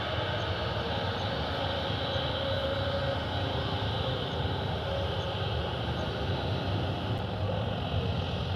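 Aircraft engine noise, a steady even drone that neither rises nor falls.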